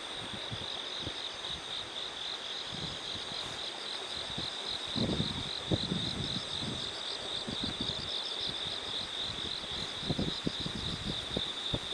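Field insects such as crickets trilling steadily in a high, continuous chorus with a pulsing chirp above it. Low, irregular rumbles come and go, loudest about five and ten seconds in.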